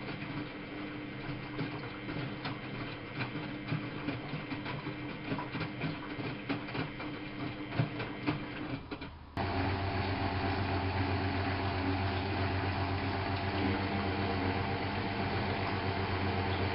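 Miele Novotronic W830 washing machine running, its motor humming with a steady tone under irregular clicking and rattling. About nine seconds in, the sound changes abruptly to a louder, steady hum with a strong low tone and no rattling.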